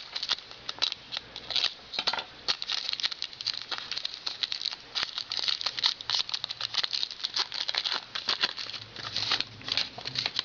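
Hockey card pack and cards being handled: a quick run of crinkling, rustling and small flicks and taps as a pack is torn open and its cards are slid and shuffled.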